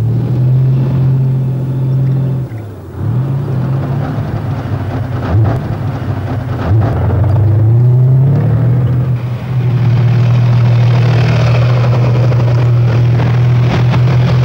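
Tank engine running loudly under load, its note dipping and then climbing as it revs up, with clanking knocks through it from the tracked vehicle moving over rough ground.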